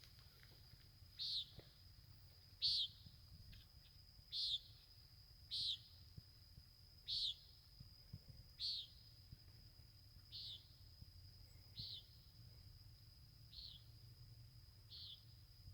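A night bird's short, sharp call repeated ten times, about every one and a half seconds, growing fainter in the last few seconds, over a steady high thin whine.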